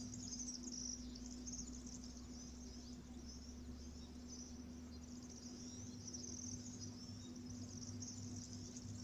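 Faint chorus of insects chirring steadily and high-pitched, likely crickets, with a steady low hum underneath.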